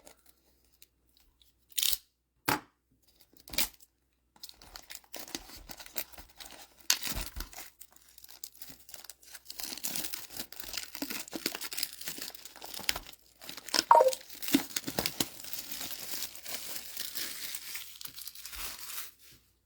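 Plastic shrink-wrap on a trading-card booster box being cut and peeled off: a few sharp clicks at first, then a long stretch of crinkling and tearing plastic, with one loud snap about 14 seconds in.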